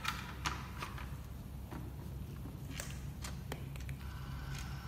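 Scattered light clicks and knocks of plastic parts being handled as a projector's casing and black optical engine assembly are taken apart and lifted, over a steady low hum.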